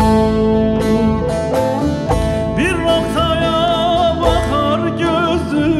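Bağlama (long-necked Turkish saz) plucked in a quick, steady rhythm, accompanying a man's voice singing long, wavering notes that become stronger about halfway through, in a Turkish folk song (türkü).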